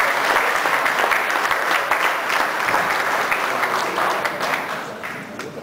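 An audience applauding, a dense patter of many hands clapping that fades near the end.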